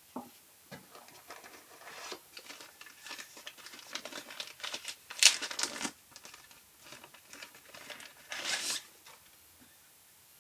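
Packaging being handled and opened: irregular crinkling, rustling and small clicks, with louder bursts a little past five seconds in and again near the end.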